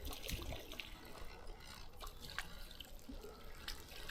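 River water trickling and dripping, with many small scattered ticks.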